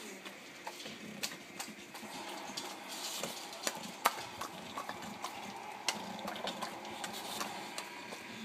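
English bulldog chewing and smacking its lips on a sticky marshmallow: irregular wet clicks and smacks, with one sharp click about four seconds in.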